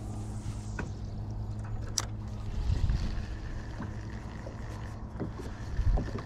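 Steady low hum of a small boat's motor, with a sharp click about a second in and again about two seconds in, and a couple of dull knocks against the boat.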